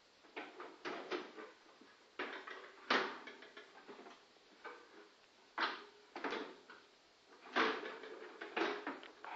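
Irregular clunks, knocks and rattles of hard plastic bin parts being handled and set down, the sharpest about three seconds in.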